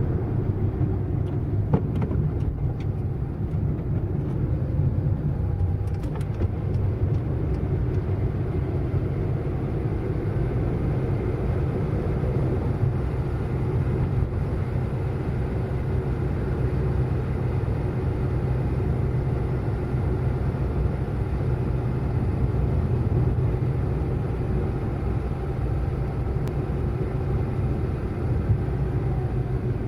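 Car driving fast: a steady low rumble of engine and road noise that holds level throughout, with a few faint clicks about two and seven seconds in.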